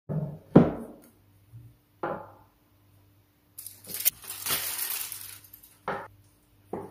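A wooden cutting board set down on a wooden countertop with two knocks, the second the loudest, then a knife laid on it with a lighter knock. A rustle follows, then two soft knocks near the end as a piece of meat is put on the board.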